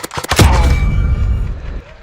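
An airsoft electric rifle fires a few quick shots, then a sudden loud low thump and rumble lasts over a second before fading.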